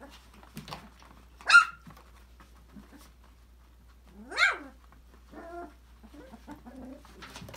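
Five-week-old Australian labradoodle puppies at play: two loud, high-pitched puppy barks, one about a second and a half in and one about four and a half seconds in, the second rising and falling in pitch. Softer puppy whines and yips follow near the end.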